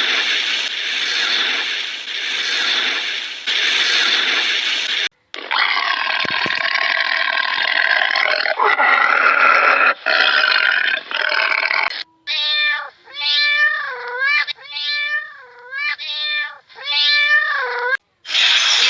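A run of animal calls: two stretches of harsh, noisy calls, then a cat meowing about six times in quick succession.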